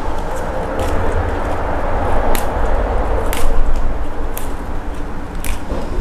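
Basil leaves being plucked off their stems close to a clip-on microphone: leaf rustling with five crisp snaps, about one a second, over a steady low rumble and hiss.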